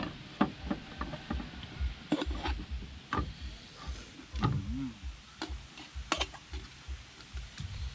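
Scattered light clicks and knocks at irregular intervals over a low rumble, as the lid of a blackened cooking pot is worked loose by its handle.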